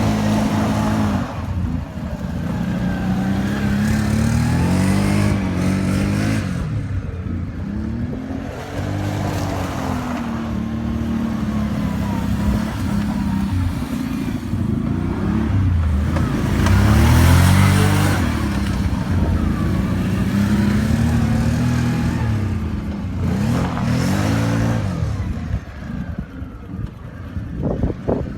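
ATV engine being ridden hard, revving up and easing off again and again, its pitch climbing and falling in repeated swells, with rushing wind and tyre noise underneath.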